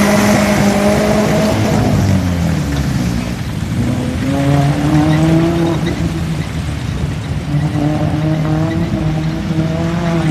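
Open-top 4x4 jeep's engine revving as it drives through a shallow river, its pitch dropping about two seconds in and climbing again a couple of seconds later, with water splashing around the wheels.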